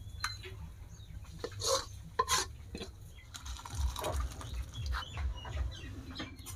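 Cookware clatter: a metal spatula knocking and scraping against an iron karai as potato curry is scraped and poured out of it into a steel bowl. There are a few sharp clanks early on, then a stretch of scraping and sliding noise from about halfway through.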